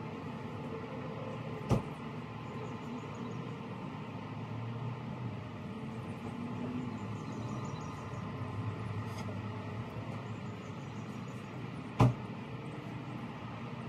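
Two sharp knocks over a steady low rumble of outdoor background noise. The first comes about a second and a half in, and the second, louder one comes near the end, from work at the SUV's open rear door.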